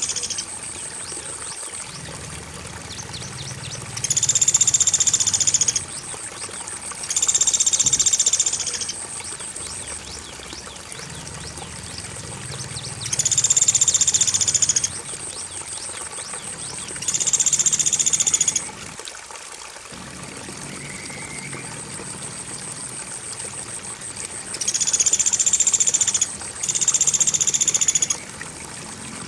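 Birdsong training track: loud, high, buzzy bird trills about two seconds long, repeated every few seconds, the last two close together. Under them run the steady sound of flowing water and a constant high cricket chirring.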